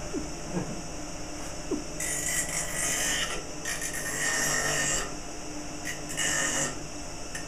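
Electric bench grinder running with a steady hum while a wooden strip is pressed against its spinning wheel, grinding the wood. A rasping grind starts about two seconds in and lasts about three seconds, and comes again briefly about six seconds in.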